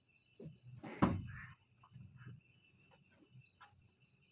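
A cricket chirping in a fast, even pulse of about five high chirps a second, falling silent about a second in and starting again near the end. A short, louder low sound breaks in just as the chirping stops.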